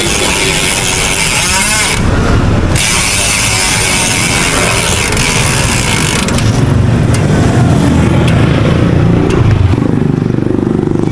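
Yamaha Sniper motorcycle being ridden, fitted with a Speed1 power spring, its engine and exhaust heard with wind noise on the microphone. From about six seconds in the engine note comes forward, louder and deeper, as the bike pulls.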